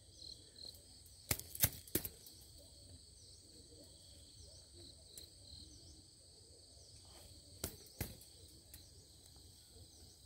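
Wire-mesh folding rat trap being handled, giving a few sharp metallic clicks: a cluster about one and a half to two seconds in and two more near eight seconds. Steady high insect chirping runs underneath.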